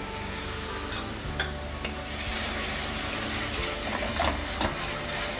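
Sizzling and stirring in a stainless sauté pan on a gas flame as white wine is poured over bacon, onions and mustard for a pan sauce. A few light clicks come in the first two seconds.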